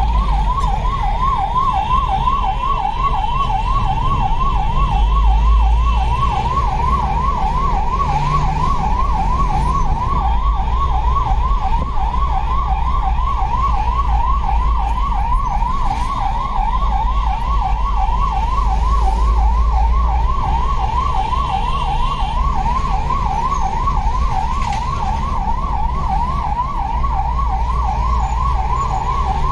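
Electronic vehicle siren warbling rapidly up and down, about four to five sweeps a second, without a break, over the low rumble of engine and road noise from a moving vehicle.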